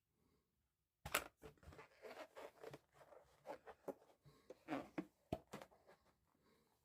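Latex balloon rubbing and squeaking under the hands as air is squeezed into one end of it: irregular crackles and short squeaks that start about a second in.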